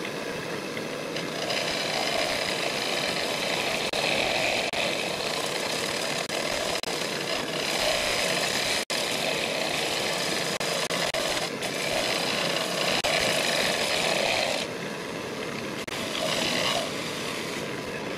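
Large ash bowl spinning on a wood lathe while a turning tool cuts its inside wall: a continuous cutting noise of shavings coming off that swells and eases over several passes. It breaks off for an instant about nine seconds in.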